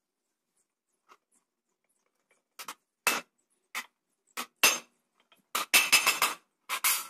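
Hand hammer striking a thin galvanized steel sheet laid along an angle iron, sharp metallic blows on its edge. After a quiet start the strikes come one at a time, then quicken into rapid runs of blows near the end.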